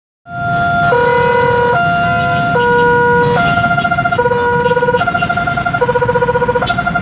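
Railway level-crossing warning siren switching between a low and a high electronic tone about every second. A little over three seconds in, the tones turn into a rapid stutter. The uploader describes the siren as faulty.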